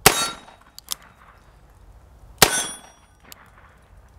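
Two shots from a Rossi RP63 .357 Magnum revolver, fired about two and a half seconds apart, each followed by a short metallic ring.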